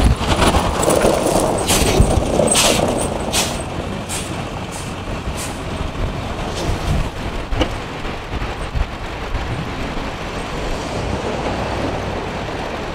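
Blizzard wind buffeting the microphone with a steady low rumble, as vehicles drive slowly past through deep snow on the road. A string of sharp clicks sounds in the first few seconds.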